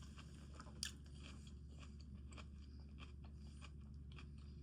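Faint chewing of orange segments: soft, wet mouth clicks, with one sharper click a little under a second in.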